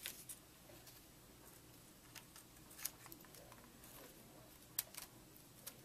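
Small scissors snipping through taped paper strips: a handful of faint, sharp snips spaced well apart against near silence.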